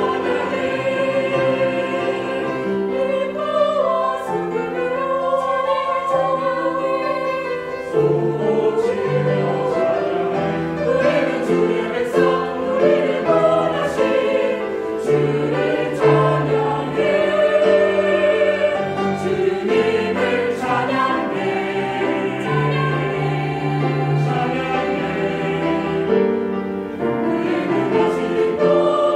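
Mixed church choir singing a Korean praise song in parts, with instruments accompanying under held low notes.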